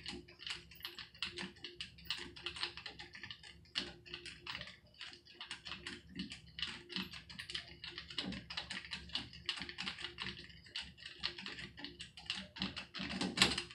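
Hand screwdriver backing a heat-loosened rusted screw out of a bathtub faucet fitting: a quick, irregular run of small clicks, several a second.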